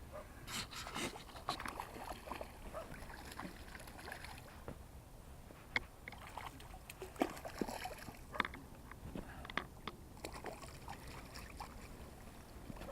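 Water sloshing and splashing, with scattered small clicks and knocks at irregular intervals.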